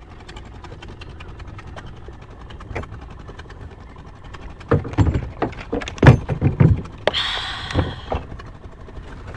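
Handling noise on a small boat: a plastic water bottle is lowered and set down. It comes as a run of knocks and thumps with a brief rustling hiss in the second half, after a faint steady background.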